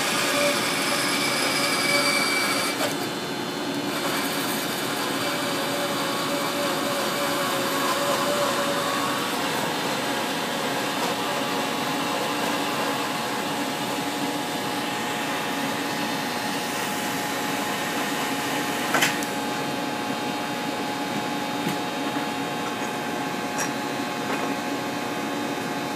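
DeWalt portable band saw running and cutting through a workpiece clamped in a vise, over a steady machine hum with several constant tones. One short sharp click about three quarters of the way through.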